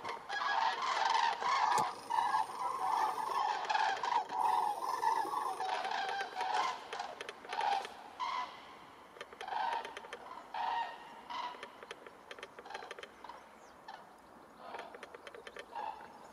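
A flock of common cranes calling in flight, many overlapping calls at once. The calling thins out and grows fainter about halfway through, with a few calls again near the end.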